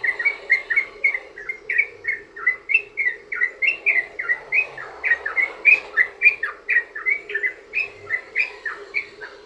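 Yellow-vented bulbul (trucukan) singing a long, unbroken run of quick chattering notes, about three a second, the continuous 'ropel' song used as a lure to set other trucukan singing.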